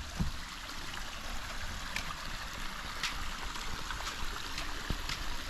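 Seneca Creek running: a steady rush of flowing water, with a few light clicks over it.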